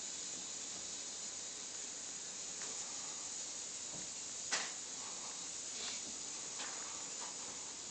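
Steady hiss of a phone's microphone and room background, with a few faint clicks, the clearest about four and a half seconds in.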